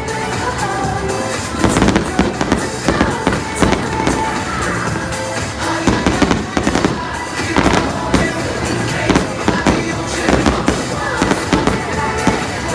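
Aerial fireworks bursting and crackling in quick, irregular succession, with loud music from the show's sound system playing throughout.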